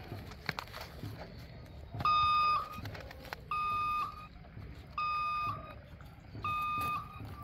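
Toy crane truck's electronic sound unit beeping: four even beeps of one steady pitch, each about half a second long, about one every second and a half.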